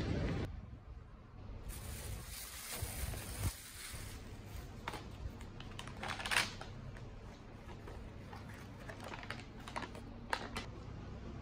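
Brown paper food wrapping being unfolded by hand, crinkling and rustling with scattered sharp crackles, the loudest about six seconds in and again near the end.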